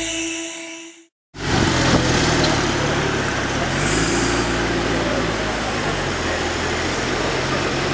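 A music fade-out in the first second, then after a cut a car engine idling steadily against street noise and faint crowd chatter.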